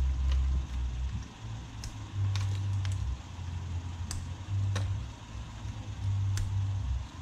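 Several sharp plastic clicks as wiring-loom connectors are pushed onto the LS1 V8's fuel injectors, over an uneven low rumble.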